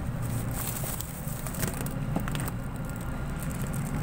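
Steady low hum inside a stopped LRT Line 2 rail car, with scattered clicks and crackles as a train on the next track pulls in alongside.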